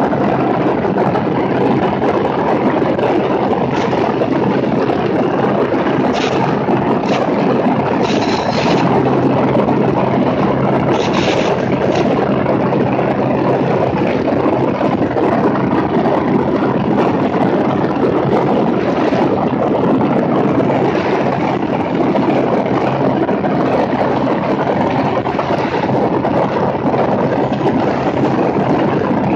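Cessna 210's six-cylinder piston engine and propeller in steady flight, a constant low drone under a heavy rush of airflow over the wingtip microphone, with a few brief higher hisses about six to twelve seconds in.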